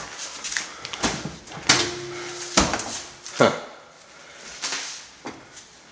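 Oven door of an old Frigidaire electric range being opened by hand: several sharp metal clicks and clunks from the latch and door, with a short squeak about two seconds in.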